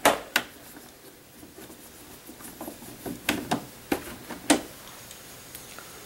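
Scattered sharp clicks and taps as a Torx screwdriver and the Jura ENA 4 espresso machine's metal and plastic casing are handled: two right at the start, then four more spread between about three and four and a half seconds in.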